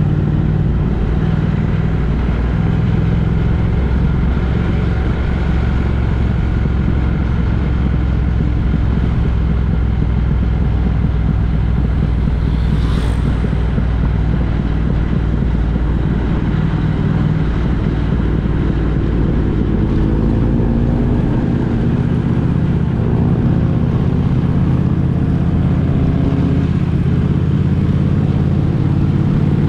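A road vehicle driving: steady engine and road noise, with the engine pitch rising between about twenty and twenty-six seconds in as it speeds up. A short sharp sound cuts through about thirteen seconds in.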